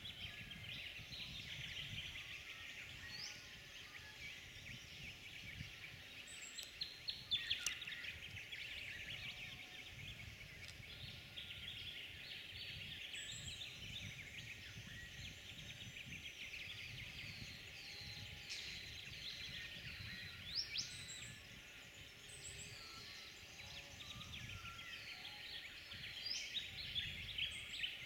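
Dense chorus of many small birds chirping and calling, with a few sharp clicks about seven seconds in.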